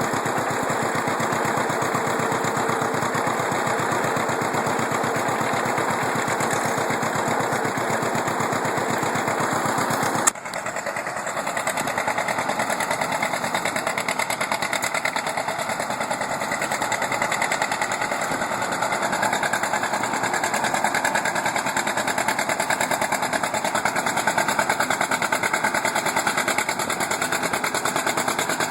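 Antique farm tractor engine running under load with a fast, even exhaust beat. About ten seconds in it cuts off abruptly and another tractor engine carries on running.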